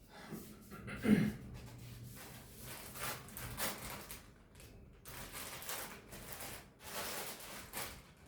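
Irregular rustling and handling noises in a small room, with a single heavier thump about a second in.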